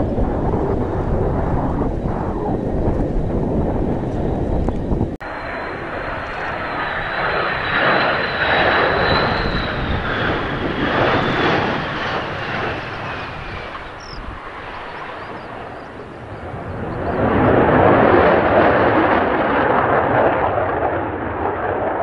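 Wind buffeting the microphone for the first few seconds, then a sudden cut to a Mitsubishi F-2B jet fighter's turbofan passing low, its high whine falling slowly in pitch. Near the end the engine's noise swells loud as the jet climbs away under power.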